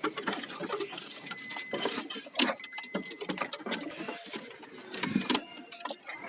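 Rapid, irregular clicking and rattling.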